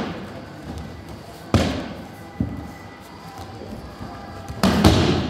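Aikido breakfalls on tatami mats: bodies and slapping hands hit the mat in heavy thuds, once about a second and a half in, more lightly a moment later, and loudest in a quick double impact near the end.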